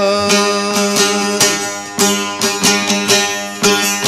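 Instrumental break in a Turkish folk song: plucked string instrument playing a run of short notes over a steady held accompaniment.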